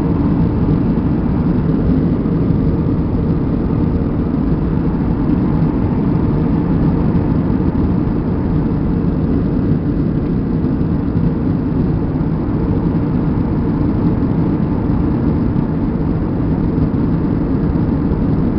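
Steady airliner cabin noise in flight: engine drone and rushing air, heaviest in the low range, with a faint steady hum.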